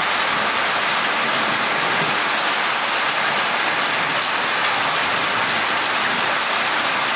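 Heavy rain falling steadily on concrete, a dense even hiss with no let-up.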